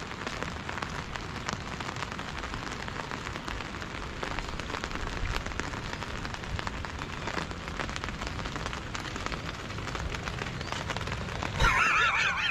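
Heavy rain falling steadily, with a dense patter of individual drops striking surfaces. A brief wavering cry comes near the end.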